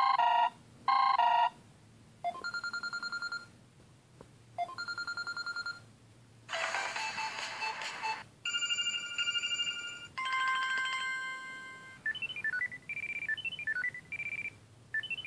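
Samsung phone ringtone previews played one after another, each cut short as the next is tapped: two short chimes, a fast trilling tone played twice, a burst of dance music, steady electronic tones, bell-like tones that fade, and chirping notes near the end.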